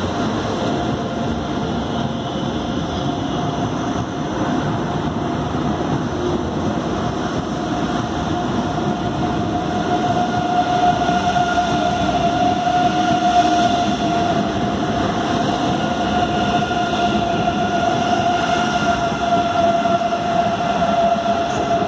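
DB class 403 ICE 3 high-speed electric train pulling out of the station, its traction drive giving a steady whine that grows louder about halfway through, over the broad rolling noise of the train.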